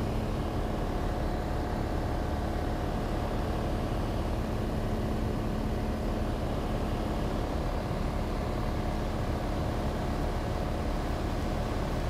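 Cessna 182's piston engine and propeller running steadily in cruise, heard inside the cockpit as an even drone with a constant hum.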